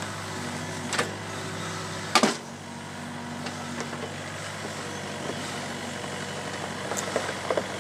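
Takeuchi TB53FR mini excavator's engine running steadily while its bucket works a boulder into place, with two sharp knocks of the bucket against stone, the louder about two seconds in.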